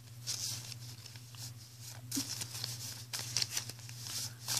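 Handmade paper cards being shuffled and handled, a run of dry rustling and scraping strokes over a steady low hum.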